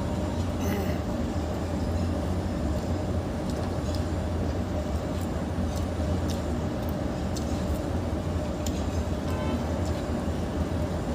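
A steady low rumbling hum fills the background, with scattered faint clicks of a person chewing rice and curry eaten by hand.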